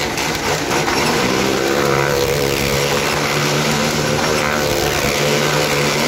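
Several motorcycle and car engines running together at high, steady revs as they circle inside the wooden well-of-death drum. They make a continuous layered drone of several pitches.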